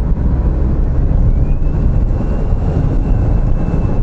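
Honda S660's turbocharged three-cylinder engine, with its HKS Legamax Sports aftermarket exhaust, and tyre noise while driving, a steady low rumble. A faint high whine rises a little over a second in and holds.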